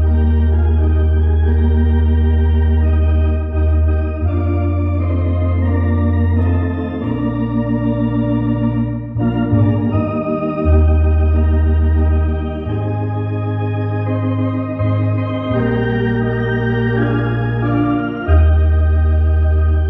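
Tokai MD-750 electronic organ playing a hymn on a church-organ voice: sustained chords over deep bass notes that change every few seconds.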